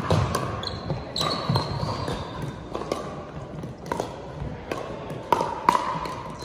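Pickleball rally in doubles play: sharp pops of paddles striking the hollow plastic ball, with the ball bouncing on the hardwood court, about nine hits in irregular rhythm, several leaving a brief ringing tone.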